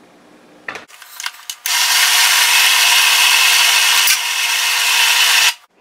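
Electric food processor running steadily for about four seconds with a constant motor hum, grinding chicken thighs that still have big chunks in them into a smooth paste, then cutting off sharply. A few light clicks of handling come just before it starts.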